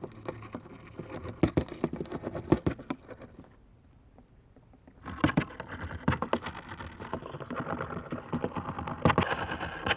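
Male wolf spider's courtship vibrations on a dry leaf, picked up by a laser vibrometer and played as sound: a run of rapid rasping clicks and taps, a short pause, then a denser run of clicks starting about five seconds in.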